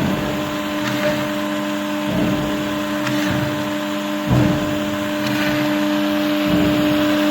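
CNC machine running: a steady motor hum, with a low rumble that swells and fades about every two seconds.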